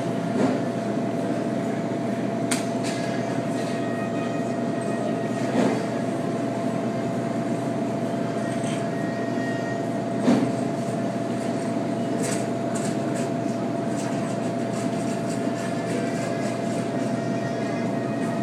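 Steady machine hum with a constant tone running through it, broken by a few short knocks.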